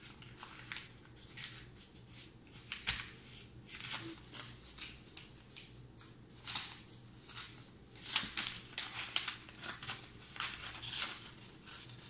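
A sheet of paper being folded and creased by hand on a wooden floor, in irregular short rustles and swishes.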